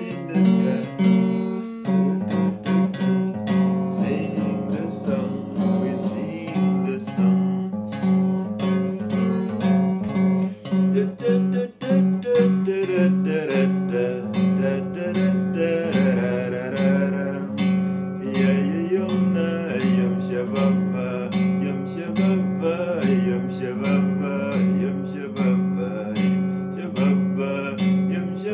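Acoustic guitar music, strummed and plucked, with a repeated low note pulsing at a steady beat under a melody line.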